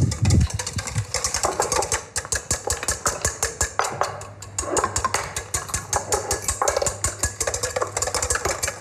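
Whisk beating a sabayon of egg yolks, sugar and wine in a stainless steel bowl over a hot water bath, clicking rapidly against the metal bowl at about ten strokes a second. The beating eases briefly about four seconds in.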